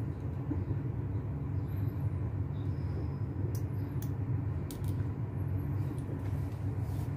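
Steady low rumble in the background, with a few faint small clicks and ticks as wires are pressed into the slots of a plastic keystone jack.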